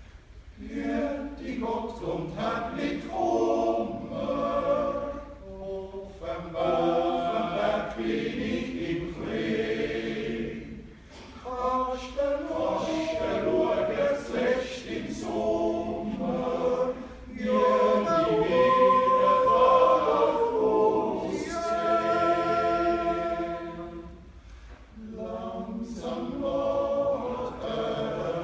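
Swiss men's yodel choir (a Jodler double quartet) singing a cappella in close harmony, in phrases with short breaks between them.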